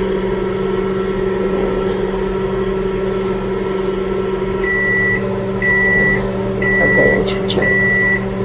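Microwave oven running with a steady hum, then four beeps about a second apart signalling the end of the heating cycle; the hum winds down right after the last beep.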